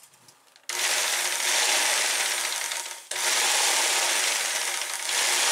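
Jigsaw running a long hacksaw blade in a homemade handled blade guide, not cutting anything. It switches on about a second in, cuts out for a moment around the three-second mark, then runs again.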